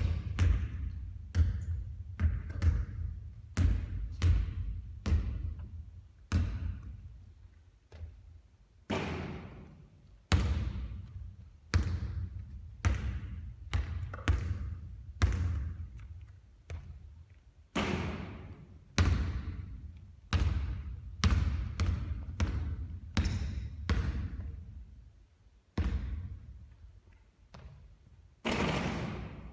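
Basketball bouncing on a court: a steady run of thuds at about one to two a second, each followed by a ringing tail.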